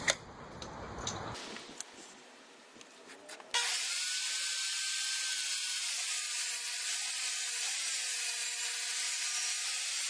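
Power saw cutting through half-inch plywood: a steady hiss of blade through wood with a faint motor whine, starting abruptly about three and a half seconds in after some quieter handling noise.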